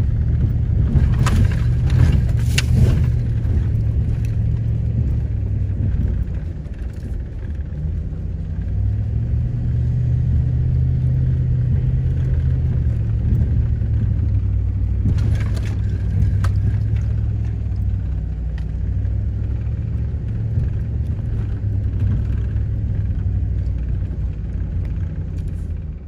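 Pickup truck engine and tyres rumbling steadily on a rough dirt road, heard from inside the cab, with a few sharp knocks and rattles near the start and again just past the middle as the truck jolts over the ruts.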